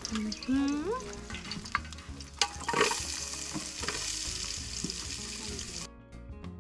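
Sliced red onions sizzling and frying in hot oil in an aluminium pot, stirred with a wooden spoon. The sizzling flares up loudly about two and a half seconds in, as the onions go into the oil, and cuts off suddenly near the end.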